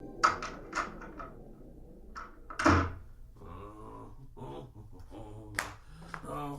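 Door and a series of knocks and clicks in a small room from a binaural (holophonic) recording, with one louder thump about three seconds in.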